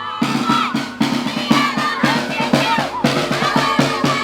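Upbeat music driven by a steady drum beat, about four to five hits a second, over repeated low bass notes.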